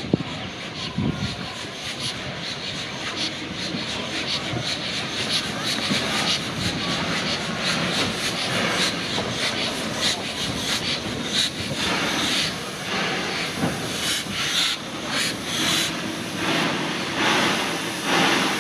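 G class Garratt narrow-gauge steam locomotive running light towards and past, its exhaust beats and steam hiss growing louder as it nears. The beats come clearer and more distinct in the second half.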